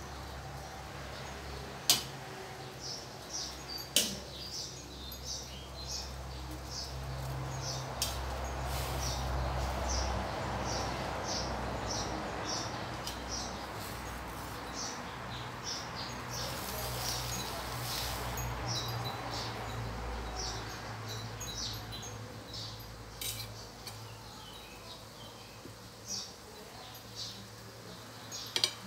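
Water boiling in a steel wok over a gas burner as greens are blanched, a steady bubbling hiss that swells in the middle, with a few sharp clinks of a metal spatula against the wok, the loudest two near the start. A bird chirps over and over in the background.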